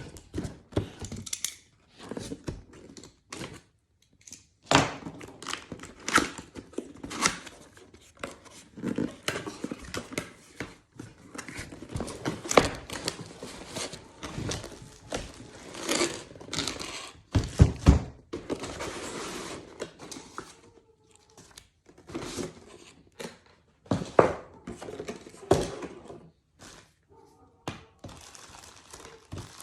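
Unboxing handling of a cable stapler's packaging: irregular knocks and thunks mixed with tearing and crinkling, with a heavier thump about eighteen seconds in.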